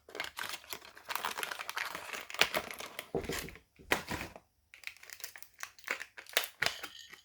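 Plastic packaging of a diecast model car crinkling and crackling as it is handled and opened, with a couple of heavier handling knocks around the middle and scattered sharp clicks after.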